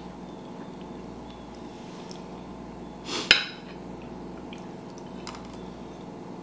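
Metal spoons tapping and scraping on a ceramic plate, with one sharp, louder clink about three seconds in, over a steady low hum.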